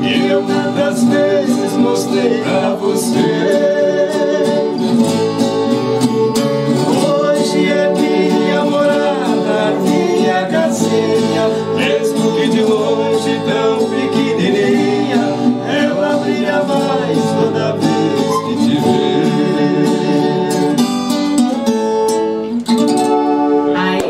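Viola caipira, the ten-string Brazilian folk guitar, played live: a plucked melody over chords, with a voice singing along at times.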